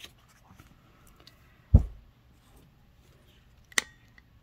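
Handling sounds on a wooden desk as a scratch-off ticket is set down: a loud dull thump about two seconds in and a sharp tap near the end, with faint rustling between.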